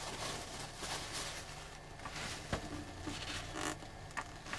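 Absorbent paper towel being pressed and rubbed over a wooden cabinet top to blot water from under a freshly applied waterslide decal: soft, intermittent rustling and brushing, with a small tap about two and a half seconds in.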